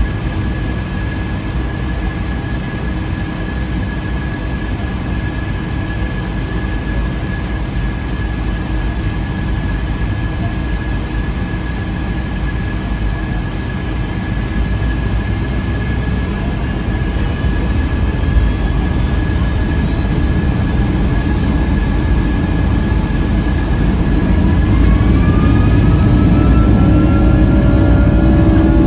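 Cabin noise of a Boeing 757-200 with Rolls-Royce RB211 engines: a steady rumble and hiss with a constant whine. In the last few seconds a whine rises in pitch and the noise grows louder as the engines spool up.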